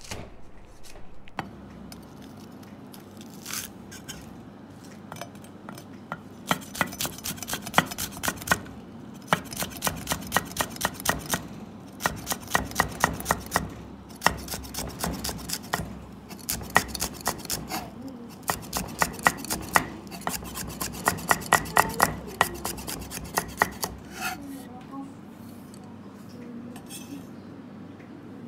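A large knife chopping green chillies on a thick wooden chopping block: a few scattered knocks at first, then rapid runs of sharp knocks, several a second, in bursts with short pauses, dying away a few seconds before the end.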